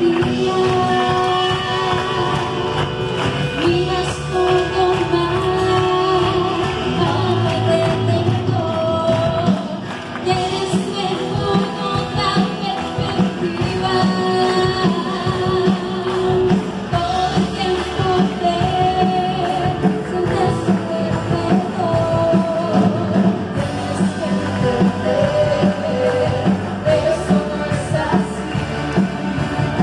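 Live worship band playing a Spanish-language song: a woman sings lead into a microphone over electric guitar, keyboard and drums, with a steady beat.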